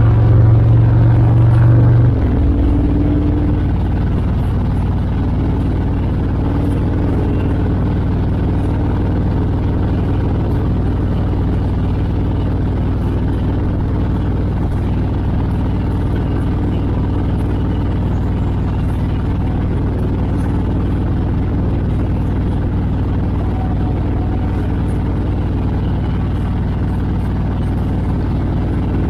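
Motorcycles cruising in a group ride: a steady low engine drone mixed with wind rush on the microphone, a little louder for the first two seconds.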